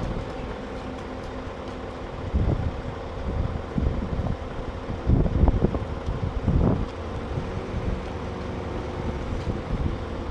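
A heavy vehicle's engine runs with a steady hum, and louder low rumbles come several times from about two seconds in.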